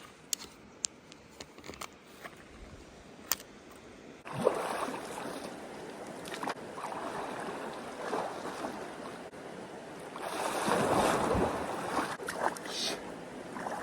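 Water splashing as a person wades and washes in cold river water, starting suddenly about four seconds in after a few faint clicks, and getting loudest near the end.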